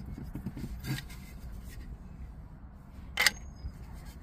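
Hard plastic mirror cover being handled: a few soft rubs and a small click in the first second, then one sharp loud click about three seconds in, over a low steady hum.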